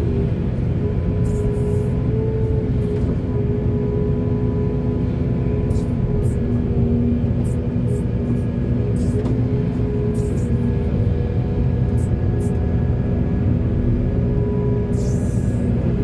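Heavy diesel earthmoving machinery running steadily with a deep, even drone, while the engine's tones shift slightly in pitch. Brief high hissing or scraping streaks come and go throughout.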